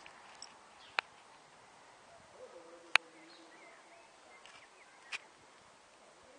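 Quiet open-air ambience with faint bird chirps, broken by three sharp clicks about two seconds apart, the middle one loudest.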